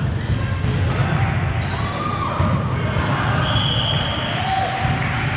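A volleyball being hit and bouncing on the gym floor, giving a few sharp impacts over a background of voices. There are a few brief high squeaks.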